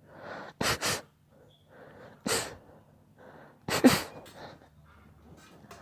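A series of sneezes: three sharp sneezes about a second and a half apart, each preceded by a short in-breath. The first and last come as quick doubles, and the last is the loudest.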